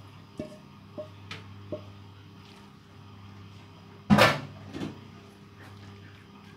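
Kitchen clatter: a few light taps of a utensil on cookware, then a loud knock about four seconds in, over a steady low hum.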